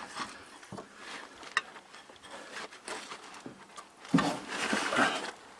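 Scattered light clicks and small knocks of hand work on a rear shock absorber under the truck, with a louder scraping rustle about four seconds in.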